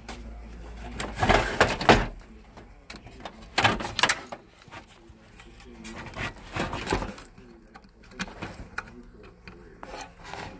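Hands working at the back of a pickup's dashboard radio: irregular plastic clicks, rattles and rustling as the wiring connectors are unplugged, loudest in a cluster about a second or two in.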